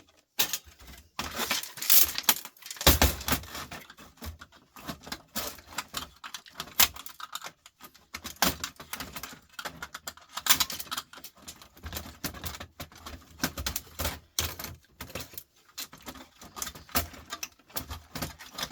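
Dense, irregular clicking and clattering of small plastic and metal parts being pried and pulled apart by hand, with a heavier knock about three seconds in.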